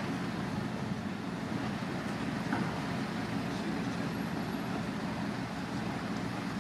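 Diesel engine of a crane recovery truck running steadily, a low, even rumble.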